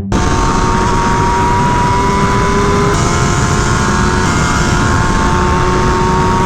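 Sport bike riding at steady speed, its engine holding a steady note under heavy wind rush on the rider's microphone.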